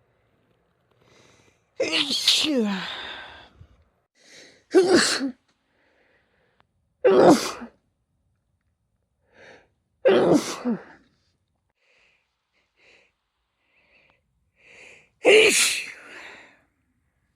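A person sneezing five times, loud "achoo" sneezes a few seconds apart, several with a short quick inhale just before.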